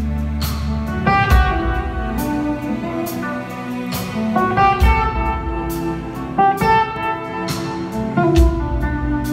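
A live blues-rock band playing: electric guitar lines over bass and drums, with cymbal strokes about once a second.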